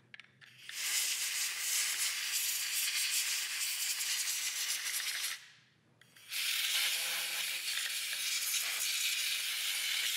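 Compressed-air blow gun hissing in two long blasts of about four to five seconds each, with a short break between, blowing bronze and cast iron grit off a lathe chuck jaw and out of the chuck's jaw slots.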